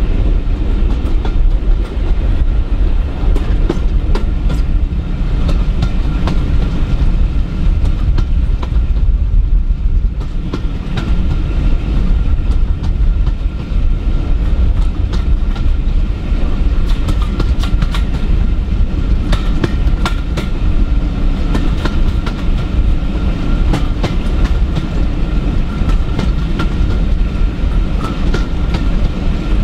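Steam-hauled passenger train heard from an open coach window: a steady rumble of the carriages running along the track, with frequent clicks of the wheels over rail joints.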